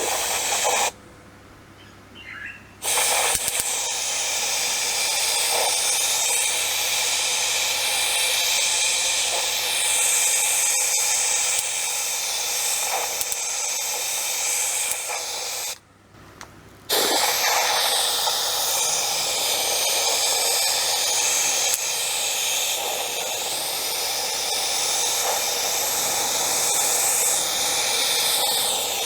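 A compressed-air tool, such as an abrasive blaster or a spray gun, hissing steadily as it works the metal can. It stops twice briefly, about a second in and again about halfway, then resumes.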